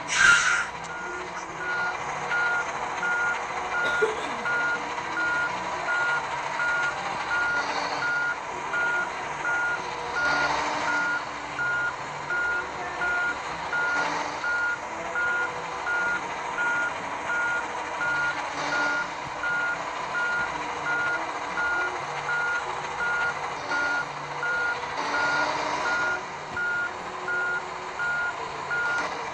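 Heavy truck's reversing alarm beeping steadily, about once a second, over the truck's engine running. A short, loud hiss of air right at the start.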